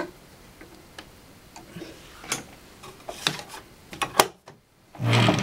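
Scattered sharp metal clicks and taps as a screwdriver tightens the screw holding a seam guide on a Janome CompuLock serger and the guide is handled, with a brief louder rustle near the end.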